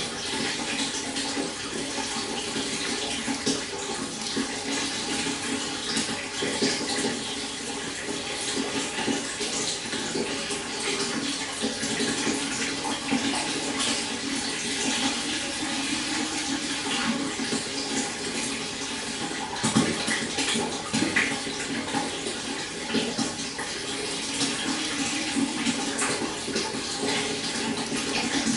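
Stream water flowing steadily, a continuous rush with many small splashes and gurgles.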